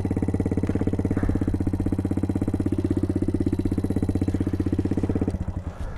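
Small motorbike engine idling steadily with an even pulse, dropping away sharply near the end.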